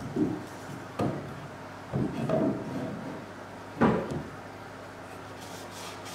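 A few dull wooden knocks and bumps as wood is handled against a wooden workbench frame: four separate knocks, the last and loudest about four seconds in.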